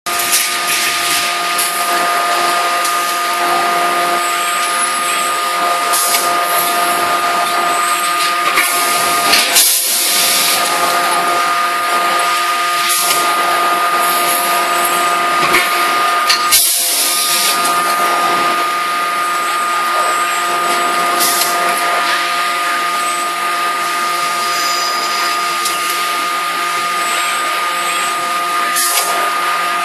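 A steady machine whine with several fixed tones over a loud hiss, from a CNC hydraulic die forging hammer's hydraulics and an industrial robot manipulator running. A few short, sharp clacks are scattered through it.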